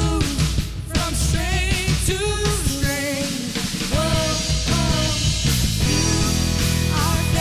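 Live worship band playing: a woman singing with a wavering vibrato over keyboard, electric guitar, bass and drums.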